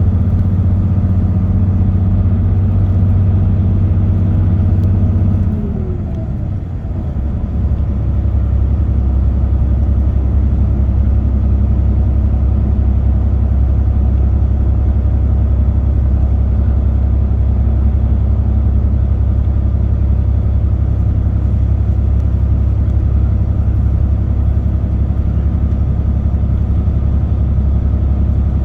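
Car driving at expressway speed: steady engine drone with road noise. About six seconds in, the engine note falls and briefly quietens, then settles into a lower steady drone.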